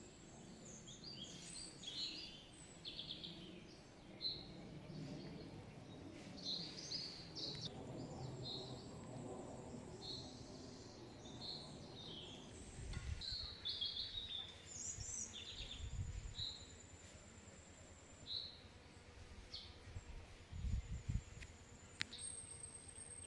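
Small birds chirping in a forest: many short, high calls scattered throughout and a thin, high trill held for a few seconds in the middle. A few brief low rumbles come through in the second half.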